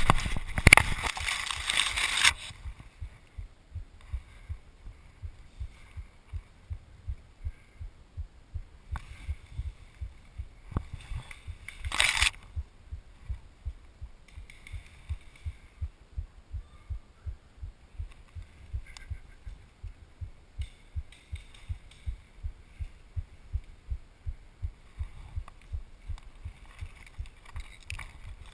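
Pine branches and brush rustling against the camera for the first two seconds, then a steady low thumping pulse, a little under two beats a second, with one more short rustle about twelve seconds in.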